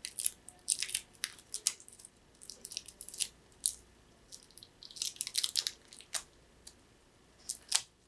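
Clear adhesive tape being picked at and peeled off a small cable connector by nitrile-gloved fingers: irregular short crackles and crinkles in clusters, with a sharp crackle near the end.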